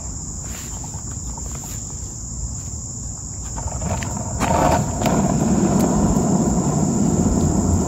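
Steady, high-pitched drone of an insect chorus. Under it is a low rumble on the microphone that grows louder about halfway through.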